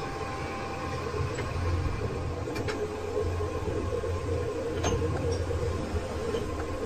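A lathe running steadily, with a continuous low hum and a few faint clicks from the work.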